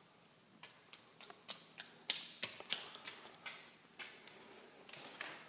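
Footsteps on a newly laid hard floor: irregular sharp taps and clicks, getting louder about two seconds in.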